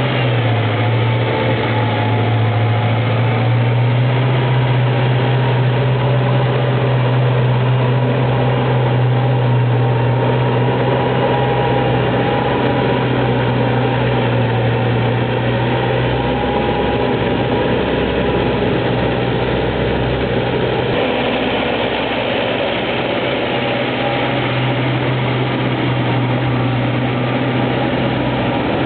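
Belarus MTZ 952.3 tractor's diesel engine running steadily under ploughing load. Its low drone weakens a little past the middle and comes back near the end.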